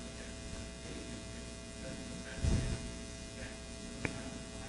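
Quiet room tone with a steady electrical hum and buzz. A brief faint low sound comes about two and a half seconds in, and a single small click near the end.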